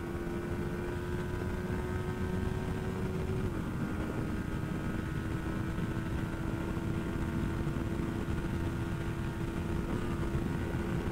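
Motorcycle engine running at a steady speed under way, with wind rush on the microphone. The engine note drops slightly about three and a half seconds in, then holds steady.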